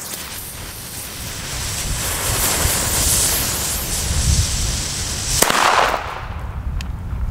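Funke Titanschlag Blau, an F2 firecracker with 3 g net explosive mass: its pre-burner hisses for a few seconds, then it goes off with one sharp bang about five and a half seconds in.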